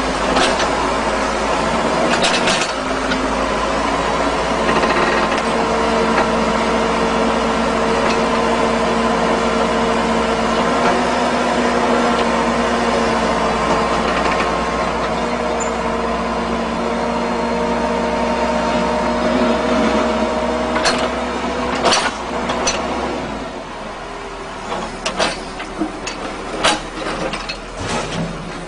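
Excavator engine running steadily under load. It eases off about three quarters of the way through, and a series of sharp knocks follows.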